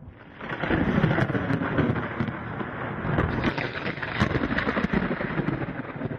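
Thunder rumbling with rain: a noisy, crackling rush that starts about half a second in.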